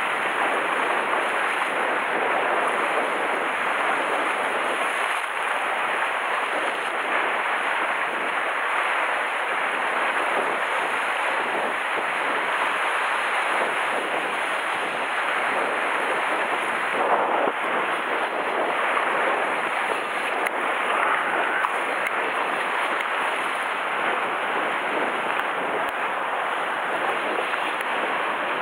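Sea surf washing and breaking against a rocky shore, a steady rushing hiss.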